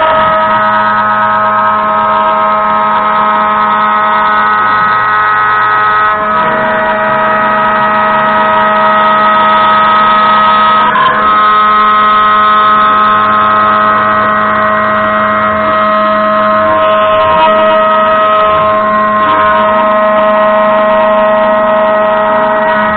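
Homemade CNC router milling an aluminium plate: the spindle runs an 8 mm bit through the cut at about 80 inches a minute, giving a loud, steady whine of several tones over a low hum. The sound shifts slightly about six and eleven seconds in as the bit changes direction in the cut.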